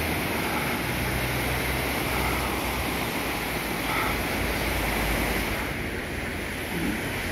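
Fast-flowing river in spate: brown floodwater rushing and churning in a steady, unbroken rush of water.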